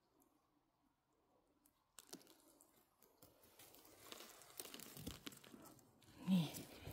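Rustling and crunching in moss and forest-floor litter, starting about two seconds in and growing busier, with one short louder sound near the end.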